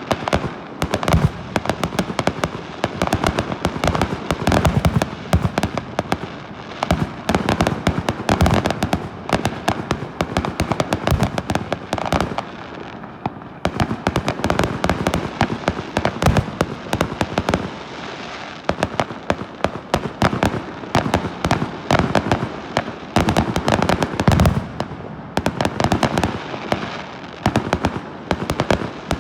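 Fireworks going off in a dense, continuous barrage of bangs and crackles, easing briefly twice, with a heavy low bang a little past the middle.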